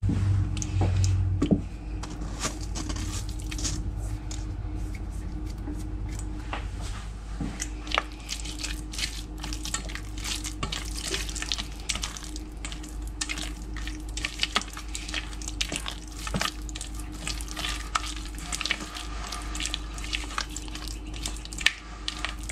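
Silicone spatula stirring and scraping thick tzatziki around a stainless steel bowl, with many quick irregular clicks and taps against the metal, over a steady low hum.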